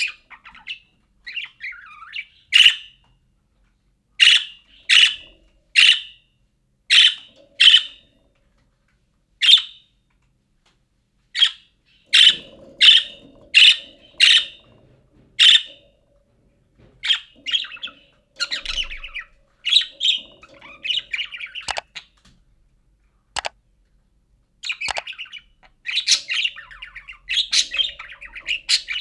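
Budgerigar calling: a run of short, sharp chirps about one a second, some in quick pairs, giving way about halfway through to a busier, longer warbling chatter.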